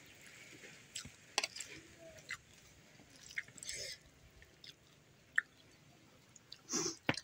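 Eating rice by hand: fingers squishing and mixing rice with cooked bottle gourd greens on a plate, and chewing, heard as scattered soft clicks and smacks. A brief high chirp comes about five seconds in.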